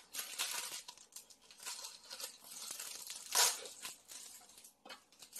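Plastic wrapper of a packaged bread crinkling and tearing as it is opened and the pastry pulled out, in irregular rustles with a louder rip about three and a half seconds in.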